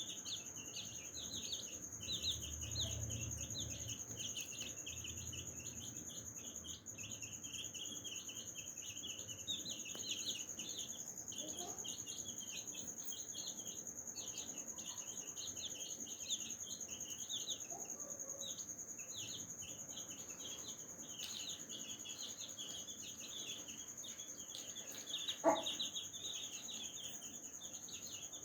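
A brood of baby chicks peeping rapidly and without a break, with a few low clucks from the mother hen, over a steady high whine. There is one short, louder sound near the end.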